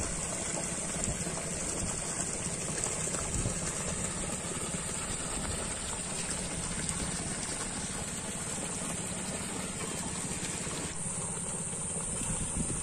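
Water gushing from a deep-well submersible pump's discharge pipe into a plastic drum, over the steady running of a small stationary engine.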